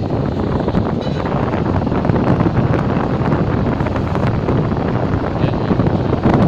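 Steady rumbling wind noise on the microphone.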